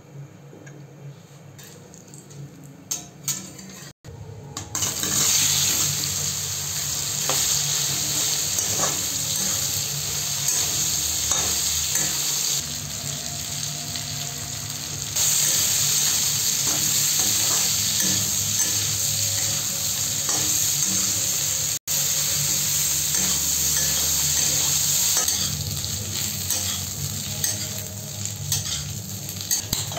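Raw banana slices frying in hot oil in a kadai, sizzling steadily, while a metal spatula stirs them with scraping and clacking against the pan. The first few seconds are quieter, and the sizzle becomes loud about five seconds in.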